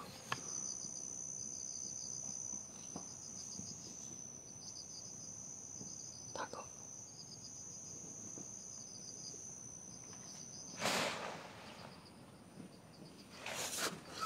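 Insects chirping in dense vegetation: a steady high buzz with a rapidly pulsing chirp beneath it. The buzz cuts off about eleven seconds in, and two short noises come near eleven seconds and near the end.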